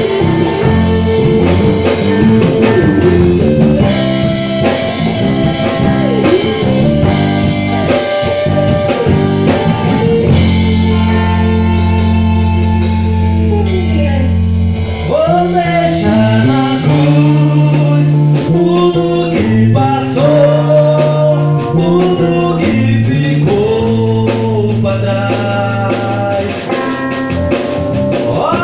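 Live band playing a song at rehearsal: electric bass holding strong low notes under drums and guitar, with a voice singing from about halfway through.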